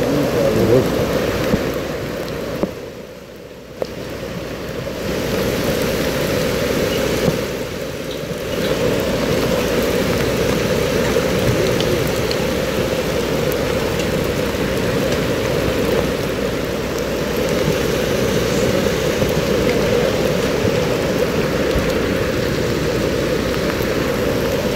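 Steady rushing of muddy floodwater pouring down a road in heavy rain, dipping briefly twice, about three and eight seconds in.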